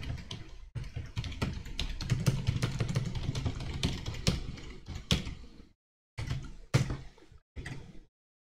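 Computer keyboard typing: rapid keystrokes for about five and a half seconds, then a few scattered clicks near the end.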